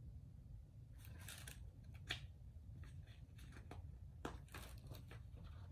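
Paper rustling from a picture book being handled and a page turned: a string of short rustles starting about a second in, with one sharper crackle about two seconds in, over a low steady room hum.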